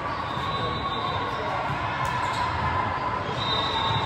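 Steady hubbub of an indoor sports hall: crowd chatter and movement echoing in a large room, with no single sound standing out.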